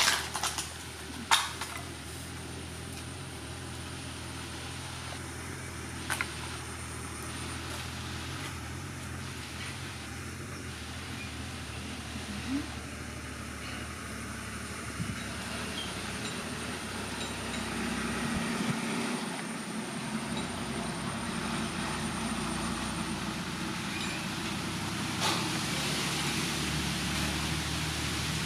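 Steady rushing background noise with a few sharp knocks, two loud ones near the start, as PVC pipes and thin plastic rods are handled on a concrete floor.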